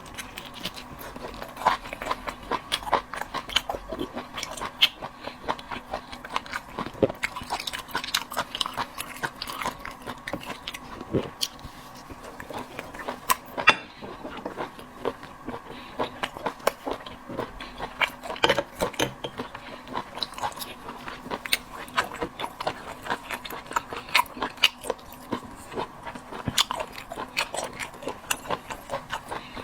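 A person chewing and biting seafood, most likely sea snail meat with chili sauce, close to the microphone: a continuous run of wet chewing, biting and lip-smacking clicks at an irregular pace.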